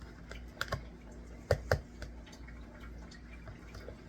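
A few light clicks and taps from handling a plastic yogurt cup and spoon: two quick pairs, one just over half a second in and a louder one about a second and a half in.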